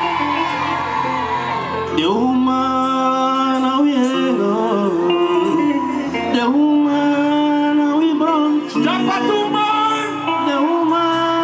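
Live band music with a man singing lead into a microphone; the sung melody comes in about two seconds in over the band.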